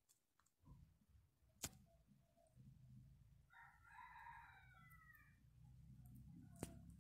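Near silence, with a faint rooster crow of about two seconds midway through and two faint clicks, one early and one near the end.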